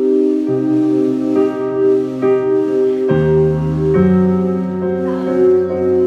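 A live band plays a slow instrumental passage of a pop song: held keyboard chords over a low bass line that moves to a new note a few times.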